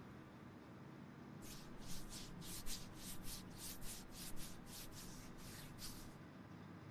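Faint rubbing strokes of a wipe over skin, cleaning the forearm with alcohol before a tattoo, about three strokes a second, starting about a second and a half in and stopping shortly before the end.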